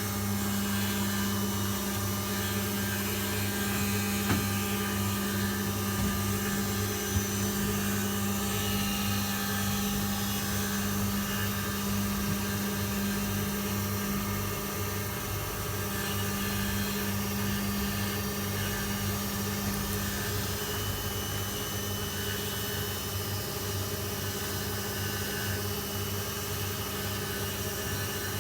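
Hoover Keymatic De Luxe 3243H washing machine running at the start of a wash cycle: a steady electrical hum with a light haze of noise, and a couple of brief knocks about four and seven seconds in.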